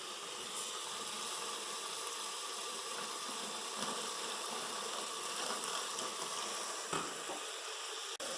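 Chicken gizzards and hearts sizzling as they brown in a hot pot: a steady frying hiss with a few short pops.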